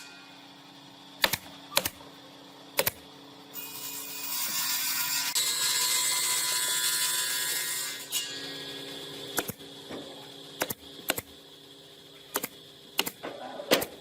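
Scattered sharp knocks and clicks of workshop handwork at irregular intervals, with a steady hiss of a few seconds in the middle.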